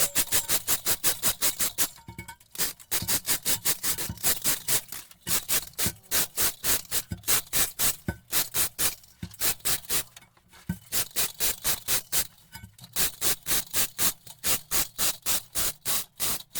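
Hand saw cutting through wood in quick, even back-and-forth strokes, about five a second, in runs broken by brief pauses.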